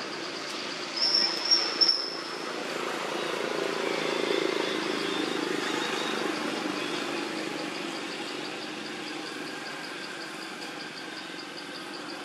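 Outdoor ambience: an insect chirps steadily at a few pulses a second, and a distant engine rises and fades. Two short, high squeaks come about a second in.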